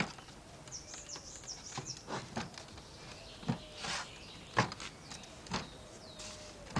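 Sharp wooden knocks and clicks as a film cassette is fitted into the back of a large wooden view camera: four knocks about a second apart in the second half, with a short scraping slide just before the second. Birds chirp briefly about a second in.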